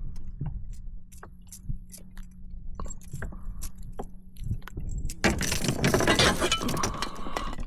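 Scattered light clicks and clinks from handling a fish and gear on a kayak, then a louder rush of rustling noise from about five seconds in.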